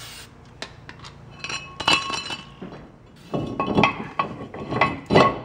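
Metal-on-metal clinks and knocks with short ringing tones as a brake rotor is fitted over the wheel hub and the caliper bracket is set against it, in three clusters.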